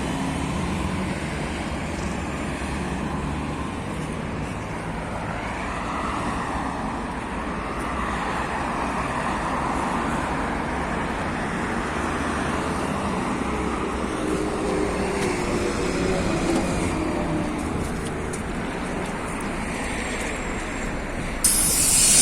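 Interior of a moving MAZ city bus: engine and tyre noise running steadily, with the engine pitch gliding up and down a few seconds in as the bus changes speed. Near the end a sudden, loud hiss of compressed air cuts in.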